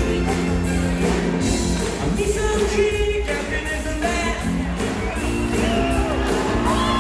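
Live rock band music with singing and shouted voices.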